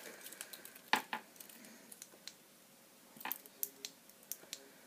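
Faint, scattered clicks and light knocks of small gear being handled and set down on a surface.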